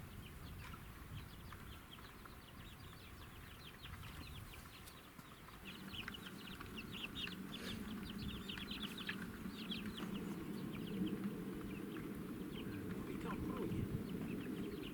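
Chickens clucking and chirping, with quick high chirps coming thickest in the middle of the stretch.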